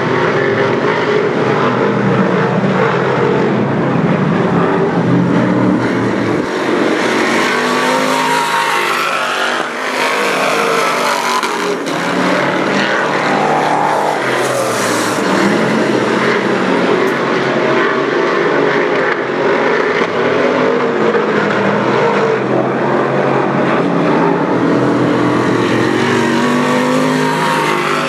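Dirt modified race car engine revving on a dirt oval, its pitch rising and falling over and over as it laps.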